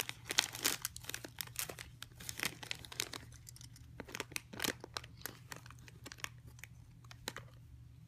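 Crinkling and crackling of plastic and foil toy wrappers being handled and pulled open, a dense run of sharp irregular crackles that thins out after about five seconds.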